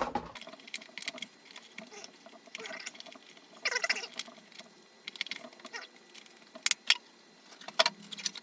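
Handling noises from large RC LiPo battery packs being picked up and set down: scattered clicks, taps and rustling, with a few sharper clacks near the end.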